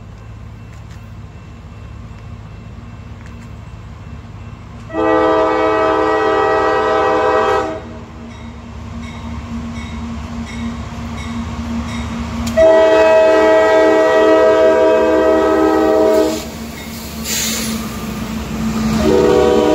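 CSX freight diesel locomotive's multi-tone air horn sounding two long blasts, then a short one starting near the end, the long-long-short opening of a grade-crossing warning. Under the horn the locomotive's diesel engine rumbles ever louder as it approaches, with a brief rushing noise as it passes close by and the freight cars begin rolling past.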